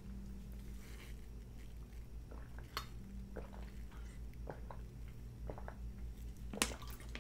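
Quiet sounds of drinking from a small plastic water bottle: a few soft clicks of swallowing and bottle handling, with a sharper click near the end, over a low steady hum.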